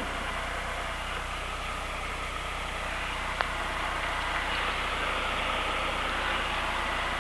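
Cessna 172's piston engine idling steadily, heard from the cabin, with power coming up a little in the second half as the plane starts to roll for taxi. A single short click about three and a half seconds in.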